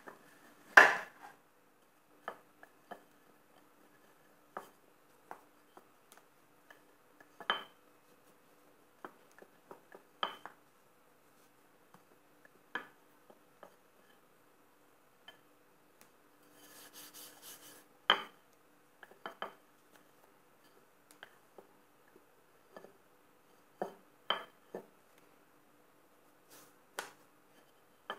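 Wooden rolling pin rolling out small rounds of bread dough on a granite countertop: scattered sharp clacks and knocks of the pin against the stone, a few seconds apart. The loudest knock comes about a second in, and a short rustle leads into another loud knock about two-thirds of the way through.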